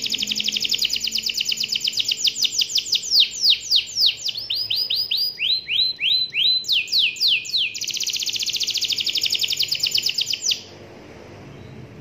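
Domestic canary singing a long song: very fast rolling trills, then a run of slower falling notes and rising-and-falling phrases, then another fast trill that stops suddenly near the end.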